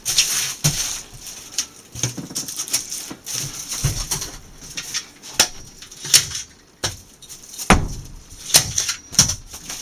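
A foil-wrapped, wood-framed foam board being handled: the foil rustles and crinkles under the hands, with a string of irregular sharp knocks and taps from the wooden frame, the loudest in the second half.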